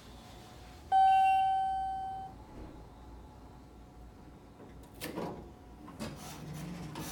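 Elevator hall arrival chime on a modernized Otis traction elevator sounds one ding that rings out and fades over about a second. About four seconds later the car doors slide open with a rumble.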